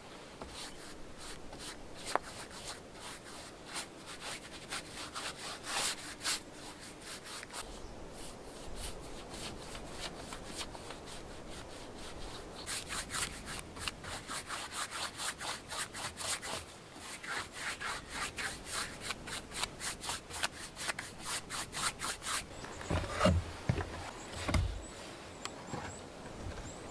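Paintbrush scrubbing acrylic varnish onto rough wooden boards, quick back-and-forth strokes several a second in runs with short pauses. A few low thumps near the end.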